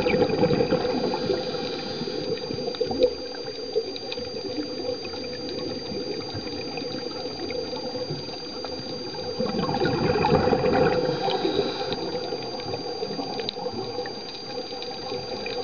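Underwater ambience from a scuba dive: a steady watery hiss with two louder surges of bubbling, near the start and about ten seconds in, typical of a diver's regulator exhalations. A thin steady high tone runs beneath.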